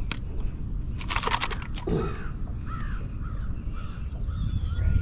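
A bird calling in a series of short, arched caws, a few a second, from about two seconds in. A burst of clatter comes about a second in, over a steady low rumble.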